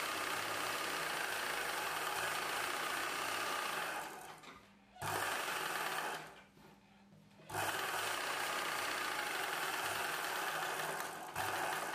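Ralson sewing machine stitching a blouse piece and its lining together along the edge. It runs steadily for about four seconds, stops, runs again for about a second, pauses, then runs for several seconds more.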